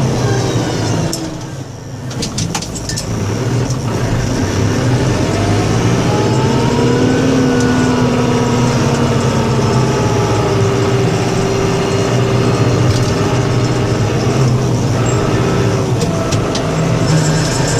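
A vehicle engine running steadily. It drops off briefly about a second and a half in, with a few sharp clicks, then picks up again with a rising pitch a few seconds later.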